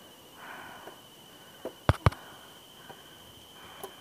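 Two sharp knocks a fraction of a second apart about two seconds in, with a few lighter clicks and a brief rustle, over a faint steady high-pitched whine.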